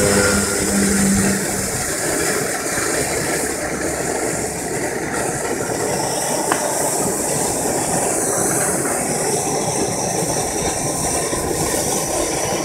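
Bernzomatic propane torch flame burning steadily with an even rushing hiss, heating an aluminum pipe joint so that an Alumaloy rod melts onto it.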